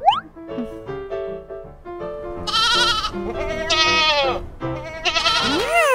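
Cartoon sheep bleating, two wavering bleats and then a third starting near the end, over gentle piano music. It opens with a quick rising whistle.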